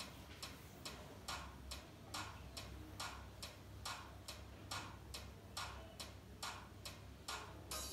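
Faint steady ticking beat, about two and a half ticks a second, like a wood block or metronome in a background music track.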